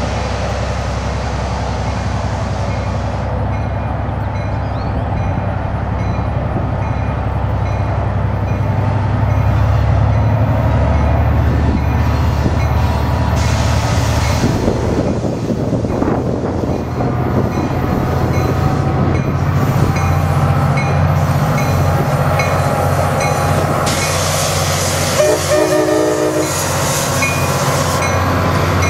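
Diesel locomotive approaching and passing with a steady low engine rumble and the noise of wheels on rail. Its horn sounds.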